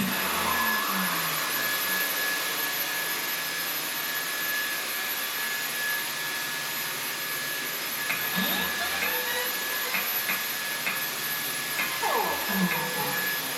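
Upright vacuum cleaner running steadily, with a constant high motor whine over the hiss of the suction.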